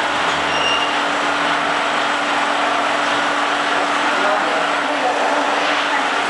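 Yadong SYS-901 automatic tunnel car wash machine running: a steady, even hiss with a constant low hum underneath.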